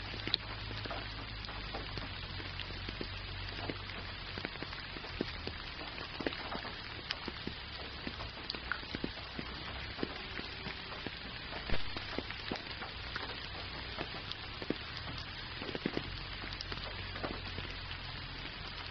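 Gentle rain falling steadily: an even hiss of rain with many scattered close drop ticks, one a little louder about twelve seconds in.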